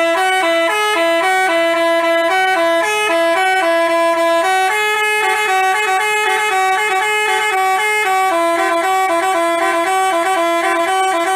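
Telolet basuri bus horn, a multi-tone musical horn, playing a quick melody of short stepping notes. It starts abruptly and cuts off suddenly at the end.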